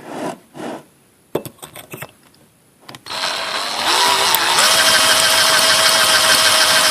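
A few handling knocks and clicks, then about three seconds in an electric drill starts and runs steadily, its pitch climbing as it spins up, while drilling a hole through a bent strip of steel computer slot cover held in a vise.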